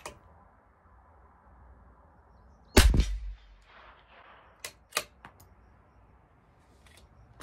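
A single shot from a CZ 457 LRP bolt-action .22 LR rifle firing Eley Force ammunition, sharp and loud, about three seconds in. About two seconds later come two crisp metallic clicks of the bolt being worked to cycle the next round.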